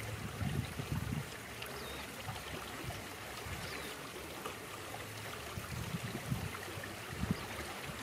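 Faint outdoor ambience: an even hiss with low wind rumble on the microphone near the start and again near the end, and a couple of faint high chirps.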